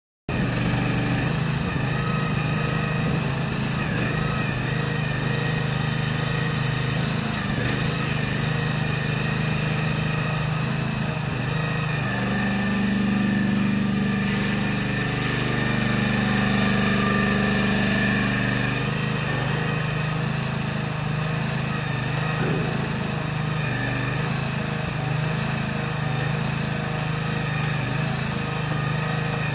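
Small engine of a 1-ton TK10 mini excavator running steadily as the machine travels and slews on its tracks; it grows louder for several seconds midway.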